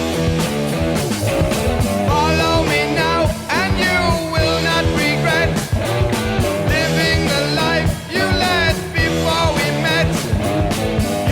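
Rock music with electric guitar and a singing voice.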